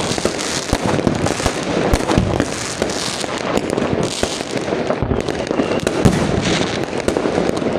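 Aerial fireworks going off continuously: dense crackling bursts with many sharp pops and a few deeper booms, one after another.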